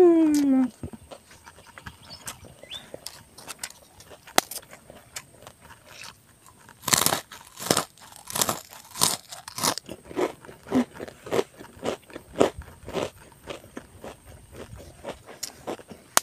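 A short falling hum of a woman's voice at the very start, then close-up crunching of a crispy kerupuk cracker being bitten and chewed: loud crunches begin about seven seconds in, followed by a steady run of softer chewing crunches.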